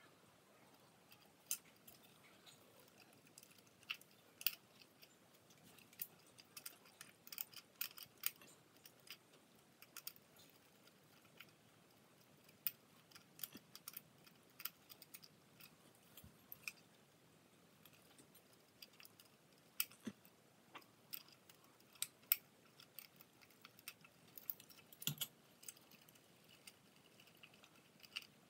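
Irregular sharp clicks and light taps of small plastic and metal parts being handled: ceiling fan wire connectors and a multi-light fixture kit being fitted to the fan's switch housing. The clicks come in quick clusters, mostly in the first third and the last third, over a near-silent background.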